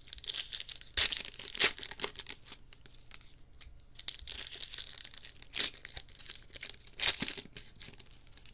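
Plastic trading card pack wrapper being torn open and crinkled by hand, in irregular bursts with several sharper crinkles.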